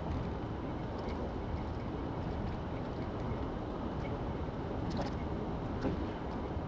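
Steady road and engine noise of a car driving along a highway, heard from inside the car, with a few faint ticks.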